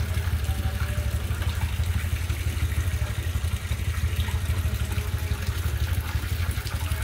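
A motor running steadily, a low hum with a fast, even pulsing.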